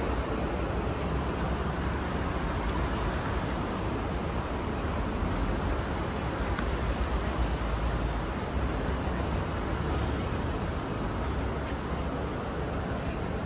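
Steady city street traffic noise: an even wash of passing vehicles with a low rumble.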